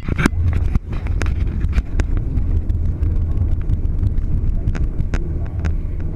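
A car driving along a paved road, heard as a steady low rumble of road and engine noise with wind on the microphone. Irregular sharp clicks and ticks are scattered through it.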